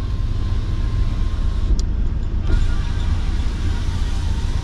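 Steady low rumble of a car heard from inside its cabin, a Maruti Suzuki Fronx with the car running. A faint thin high tone sits over it for the first second and a half.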